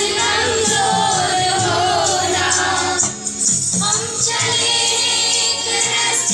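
Group of children singing a prayer song together, with a steady percussion beat keeping time. The singing breaks briefly about three seconds in.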